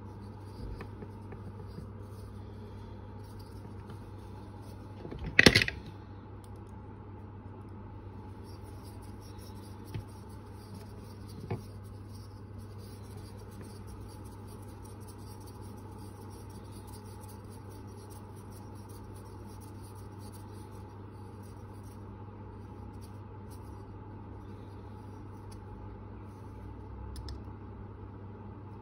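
Handling of a carved wooden lure blank at a workbench: light rubbing and scratching over a steady low hum, with one sharp knock about five seconds in and two small ticks a few seconds later.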